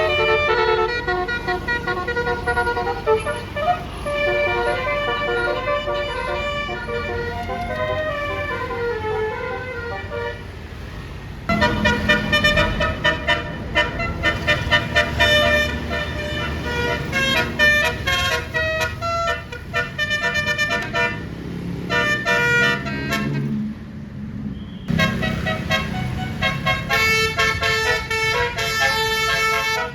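Bus telolet horns: a bus's set of multi-tone air horns playing melodic tunes, the notes stepping up and down. In the middle part they sound faster, repeated notes, with abrupt breaks about a third and four-fifths of the way through.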